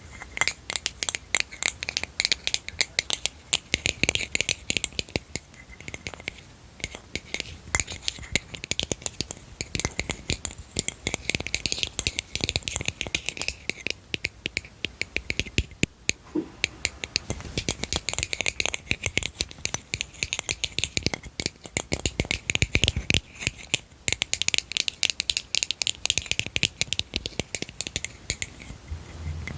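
Close-miked ASMR tapping and clattering on small hard objects: a dense, rapid run of crisp clicks and rattles, with a few heavier knocks about three quarters of the way through.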